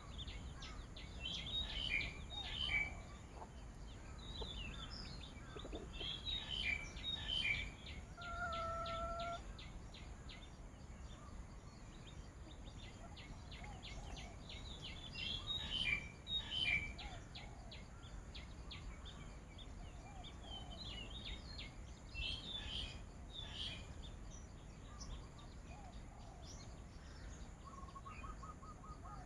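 Wild birds chirping and calling in bursts over low background noise, with rapid ticking calls, one steady whistled note about a third of the way in and a short trilled note near the end.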